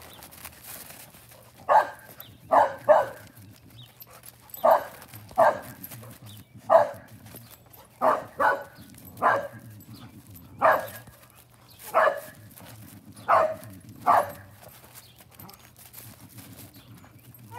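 A dog barking repeatedly, about fourteen short barks, some single and some in quick pairs, at uneven gaps.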